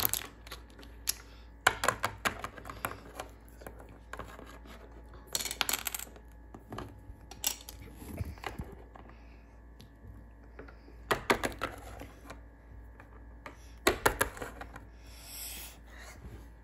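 Small plastic toy figurines being set down and moved about on a wooden tabletop: scattered clusters of light clicks and clatters.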